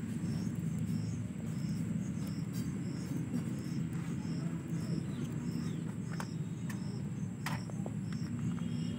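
An insect chirps steadily in the background, a short high chirp about twice a second, over a low steady rumble. A few faint clicks come from handling near the microphone.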